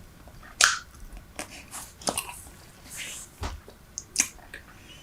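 Super Bubble bubble gum chewed right at the microphone: irregular wet smacks and sharp clicks of the mouth, about eight in a few seconds.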